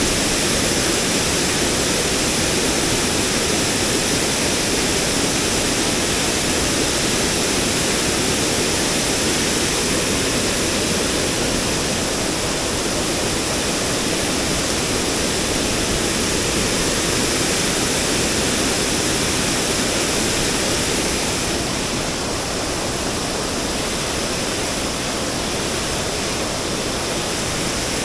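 Fast-flowing mountain stream running: a steady, loud rush of water with no break.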